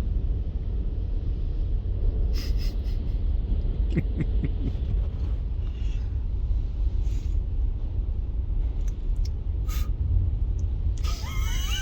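Steady low rumble of the ferry's engines heard inside the parked van, with scattered short rustles and breathy noises. Near the end comes a drawn-out, wavering whiny vocal sound.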